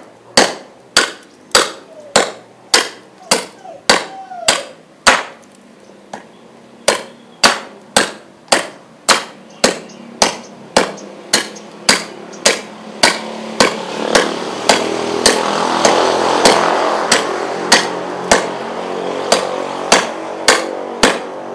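A Work Tuff Gear Siddha khukuri chopping repeatedly into very hard wood, about two sharp strikes a second with a short pause about five seconds in; the blade is biting in and cutting the wood rather than smashing it. A rushing noise swells in the background in the second half.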